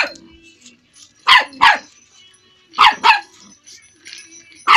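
Dog barking in quick pairs of two: one bark at the start, then a pair about every second and a half.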